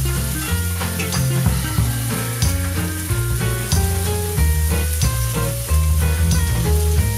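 Raw shrimp sizzling in hot oil as they are laid into a frying pan of browned shallots and tofu, with scattered light clicks of chopsticks against the pan. Background music with a bass line plays throughout.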